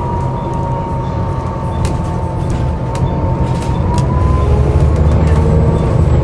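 Volvo B7TL double-decker bus's diesel engine drone, growing louder about four seconds in, under a steady high whine, with a few sharp rattles.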